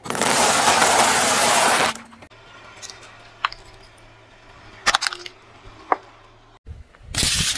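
A car tyre crushing a heap of dry egg noodles: a loud, dense crunching crackle for about two seconds. Then a balloon filled with water beads is flattened under the tyre, with a few sharp clicks and snaps. Near the end another loud crushing noise starts.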